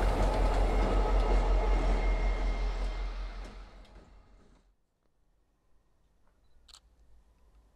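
MBTA diesel locomotive passing close by, engine running in a steady rumble with a thin whine on top, fading over about a second and then cutting out. Near quiet follows, with a single short click near the end.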